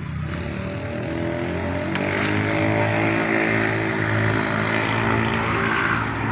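Home-built chainsaw's engine running up to a high, steady note, then biting into a mango log about two seconds in, adding a loud rasp of the chain cutting wood over the engine.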